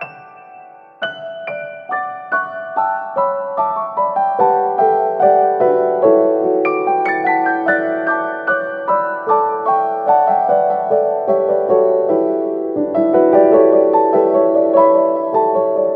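Background piano music: a gentle run of single notes over sustained chords, starting softly after a short pause about a second in.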